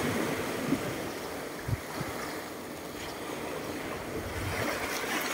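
Small sea waves washing in and out over a pebble shore: a steady, even wash of surf.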